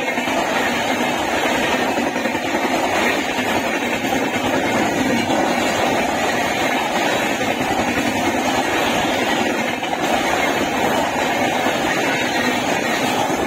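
Express train of LHB passenger coaches running past at speed: a loud, steady rushing rumble of wheels on rail.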